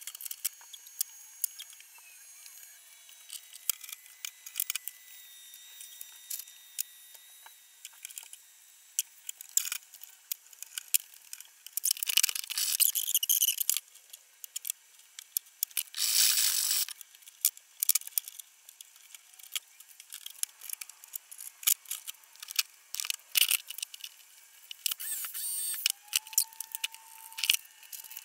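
Workbench handling noise: many quick, irregular clicks, clinks and rattles of tools and metal parts being handled while a circular saw is adjusted, with a few short, louder hissing bursts around the middle and near the end.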